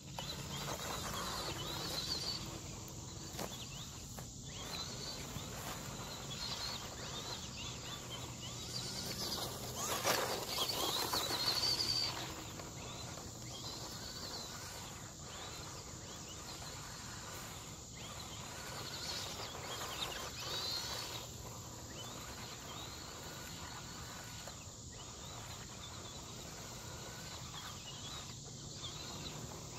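Small electric RC truck, a Latrax Prerunner, driving on dirt and grass: its motor gives a high whine that rises and falls as it speeds up and slows, loudest from about 10 to 12 seconds in.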